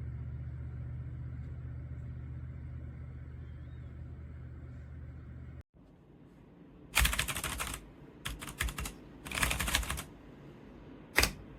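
A steady low hum that cuts off about halfway through, then typing on a Redragon K556 mechanical keyboard with brown switches: dense key clicks in three or four quick runs, the last a short burst near the end.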